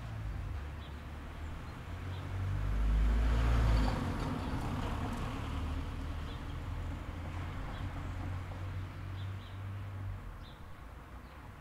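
Outdoor background ambience: a low rumble that swells a few seconds in and then eases, with faint short chirps scattered through it.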